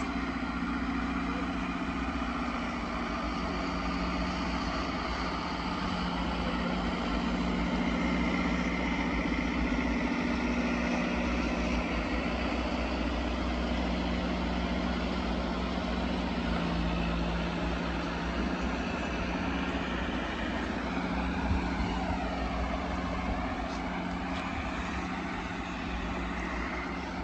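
Heavy-haulage diesel tractor units and a multi-axle transporter trailer running slowly past, a steady low engine drone with tyre rumble. The engine note shifts in pitch now and then as the vehicles pass.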